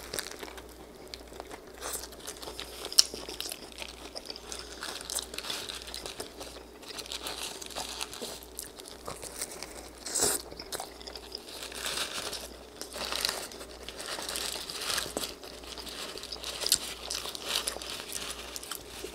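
Close-miked eating of a loaded pita wrap stuffed with brisket, lettuce and peppers: wet chewing and mouth clicks mixed with the crinkling of its paper-and-foil wrapper. There is a sharp click about 3 s in and a louder crunch of bites about 10 s in.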